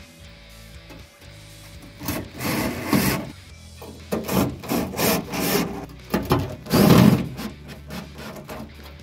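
Several bursts of scraping and rubbing as a sheet-steel floor repair panel is worked into position, the loudest about seven seconds in.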